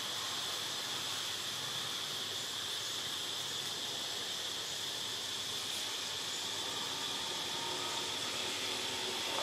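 Steady high-pitched drone of insects in tropical forest, an even, unbroken chorus.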